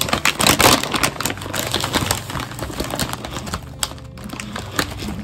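Foil-lined snack bag crinkling and crackling as it is handled and opened. The crackle is densest and loudest in the first second, then goes on more lightly.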